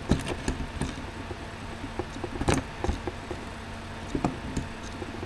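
Smith & Wesson M100-1 handcuffs and key being handled: scattered small clicks and taps as the key's pin end is pushed in to set the double lock, the loudest about two and a half seconds in.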